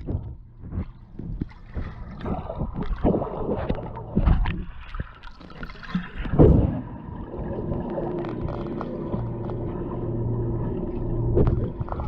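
Swimming-pool water heard underwater through a GoPro Hero7 White: muffled sloshing and irregular knocks from people moving in the water. From about seven seconds in, a steady low hum joins them.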